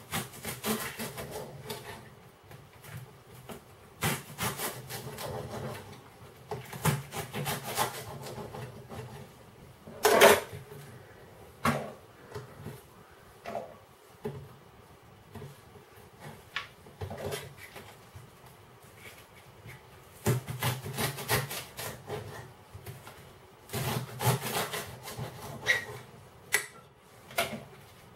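A kitchen knife chopping a leek on a cutting board: runs of quick cuts, each ending in a sharp knock of the blade on the board, broken by pauses, with one louder knock about a third of the way in.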